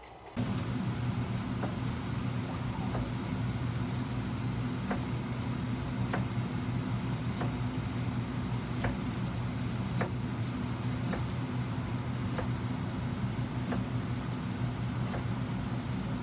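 Kitchen knife slicing a firm white vegetable into slabs on a plastic cutting board, a short knock of the blade against the board about every second. Under it a steady low machine hum starts about half a second in and is the loudest sound.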